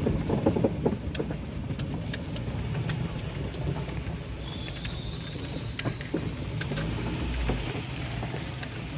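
A car driving over a rough road: a steady low rumble with scattered knocks and rattles, and a brief high whistling tone about halfway through.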